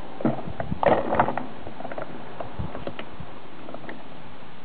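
A quick cluster of clicks and knocks in the first second and a half, then a few faint ticks, over a steady hiss.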